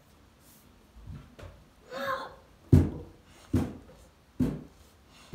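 A long red-handled pole swung and struck repeatedly: a couple of soft knocks, a short grunt, then four dull thumps a little under a second apart.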